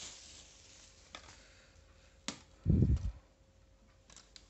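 A camera tripod being handled as it comes out of its plastic wrapping: a rustle of plastic at the start, a few sharp clicks of its parts, and one dull low thump nearly three seconds in, the loudest sound.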